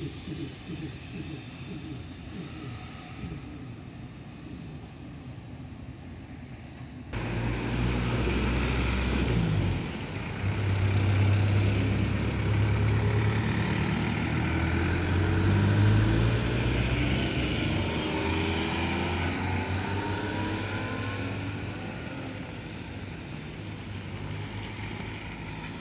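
Kotoden 700-series electric train rolling slowly into the station. About seven seconds in it gives way to louder road traffic on a wet street: cars running past with a steady low hum and tyre hiss, and a rising whine from one vehicle pulling away near the middle.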